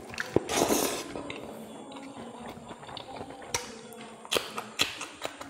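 A hand scraping and gathering rice on a ceramic plate, loudest about half a second in, then mouth-eating sounds: chewing with sharp wet clicks and smacks near the end as a handful of rice and pork is eaten.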